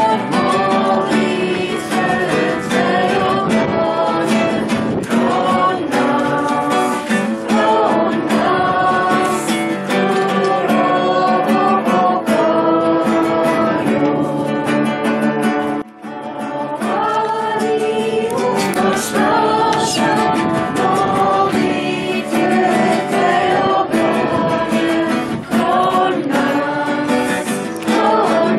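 A woman singing a song to her own acoustic guitar accompaniment, with a short break about halfway through.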